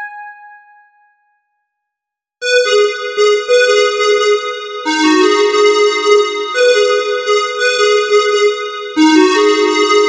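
Casio CTK-3500 portable keyboard. A held note fades out over the first second, then after a short silence the keyboard plays sustained chords of several notes, the chord changing every two seconds or so.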